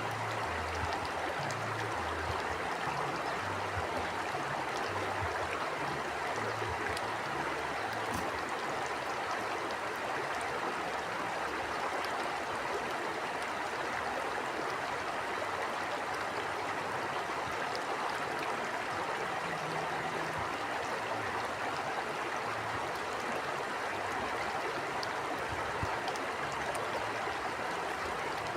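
A stream flowing steadily: an even rush of running water with faint small splashes and gurgles.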